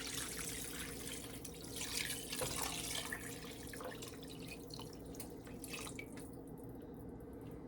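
Water pouring and splashing steadily into a cooking pot of gumbo, dying away about six seconds in.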